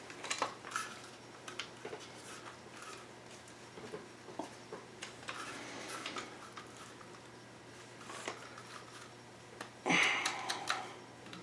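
Magpul MOE polymer handguard half being worked onto an AR-15: scattered light clicks, taps and scraping of plastic against the rifle's metal, with a louder stretch of rubbing and clicking about ten seconds in.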